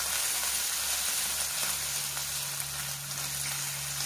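Crushed garlic, ginger and green chillies sizzling steadily in hot oil in a kadhai.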